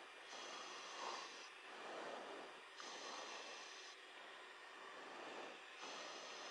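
Faint steady hiss on an aircraft radio or intercom channel, with soft breath-like swells about every second and a half.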